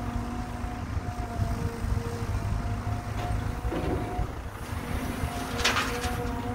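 Caterpillar hydraulic excavator running: a steady diesel rumble with a humming hydraulic tone as the loaded bucket swings over a dump truck. Near the end comes a short rushing sound as the bucket dumps soil into the truck bed.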